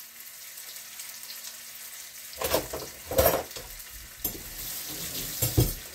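Ground chicken sizzling in a frying pan, with a run of knocks and scrapes of a utensil in the pan starting about two and a half seconds in.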